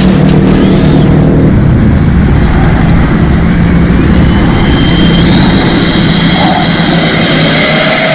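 Radio-controlled jet trainer model aircraft's motor running with a loud rushing noise, its whine climbing steadily in pitch over the second half as it speeds up.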